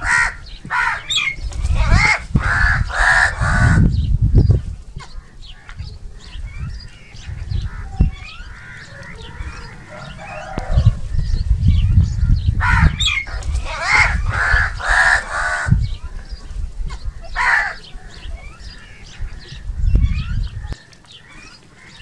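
House crows cawing: a run of several harsh caws at the start, another run about halfway through and a single caw later, with softer bird chatter between. A low rumble runs underneath.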